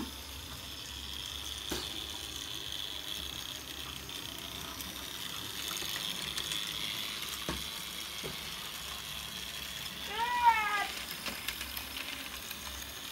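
Lego monorail (Airport Shuttle 6399) running along its elevated track with a steady high whine and a few light clicks. About ten seconds in, a short high-pitched call rises and falls.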